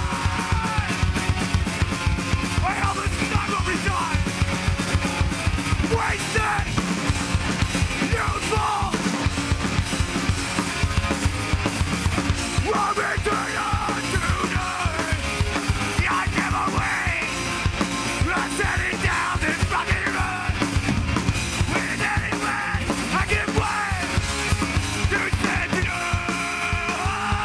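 Hardcore punk band playing live: two electric guitars, bass guitar and a drum kit with rapid, dense drum hits, and a vocalist yelling into the microphone.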